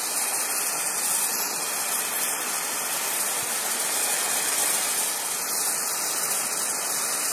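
Oxy-butane brazing torch burning with a steady rushing noise, its broad flame heating a copper-to-brass pipe joint coated with borax flux before brazing.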